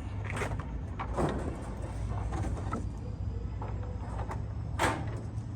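A few scattered knocks and clatters at irregular spacing, the loudest near the end, over a steady low hum.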